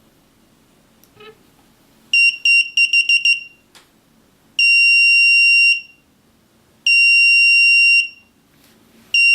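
S2C gate receiver's buzzer beeping a high steady tone: a quick run of about seven short beeps, then two long beeps of about a second each, and another starting near the end. The beeps confirm that the transmitter has been deleted from the receiver.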